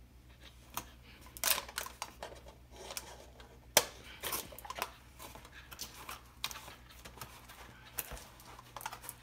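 Rubber bands being stretched over a foam wing and a plastic-bottle fuselage: scattered rubbing, rustling and light clicks as the parts are handled, with one sharp click about four seconds in.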